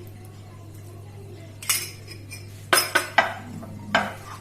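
A utensil clinking and knocking against a mixing bowl while cauliflower pieces are stirred through a thick cornflour and maida batter: about five sharp knocks in the second half, three of them close together.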